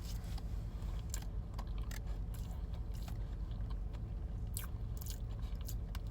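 Close-up chewing of a bite of Biscoff cake: soft, wet mouth sounds with scattered small crunches and clicks.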